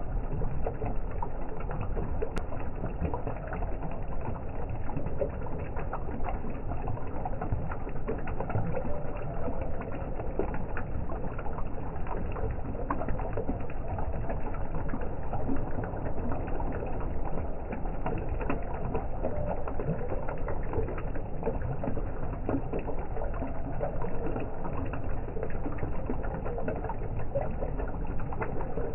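Water from a three-tier garden fountain trickling and splashing into its basin: a steady, low burbling dotted with many small drips.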